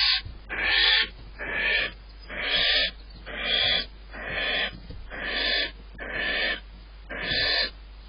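Barn owl giving a rasping hiss over and over, about once a second, eight times in a row.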